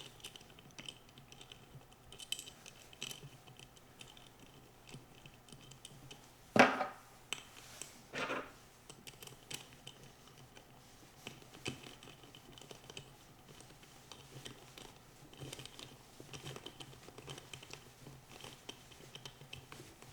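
Light clicks and scratches of small screws and a tool being worked as wheels are fitted to an off-ice skate boot, with two louder knocks about six and a half and eight seconds in.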